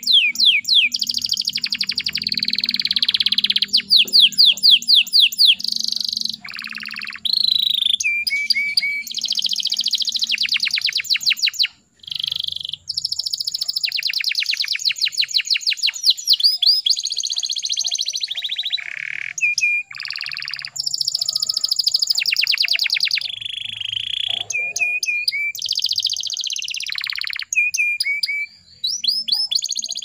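Domestic canary singing a long, nearly unbroken song of rapid trills and rolls, mixed with short held notes and glides. There are brief pauses about twelve seconds in and again near the end.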